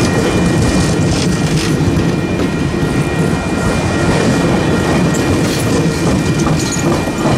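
Passenger cars of a Cuyahoga Valley Scenic Railroad train rolling past, giving a steady, loud rumble of steel wheels on rail with clicks over the rail joints. A faint, steady high whine sits above the rumble.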